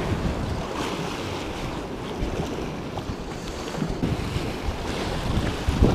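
Wind buffeting the microphone over small waves washing against the rocks below.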